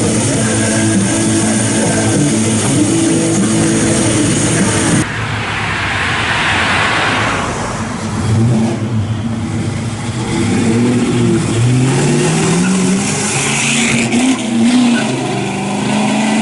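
1971 Dodge Dart's V8 engine running steadily, then after an abrupt change about five seconds in it is revved a few times, its pitch climbing and falling.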